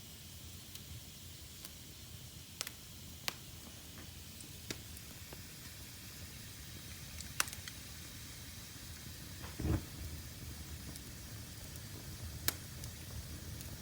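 Wood fire in a fireplace burning with a steady soft hiss and occasional sharp crackling pops, about half a dozen in all. About ten seconds in there is a short low thump.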